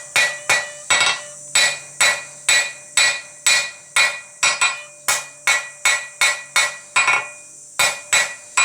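Blacksmith's hand hammer striking hot flat bar steel on an anvil in a steady rhythm, a little over two blows a second, each blow ringing. This is the sound of drawing out a taper on the bar's end. There is a short pause near the end before the blows start again.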